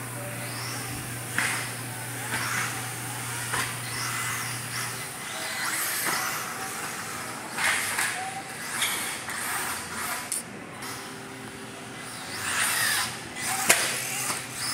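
Radio-controlled cars driving the track, their electric motors whining up and down in repeated swells as they pass. A steady low hum stops about five seconds in, and there is a sharp knock near the end.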